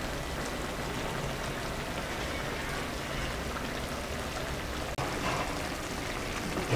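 Pan of chicken thighs simmering in broth on a gas ring, giving a steady bubbling, sizzling hiss. It cuts out for an instant about five seconds in.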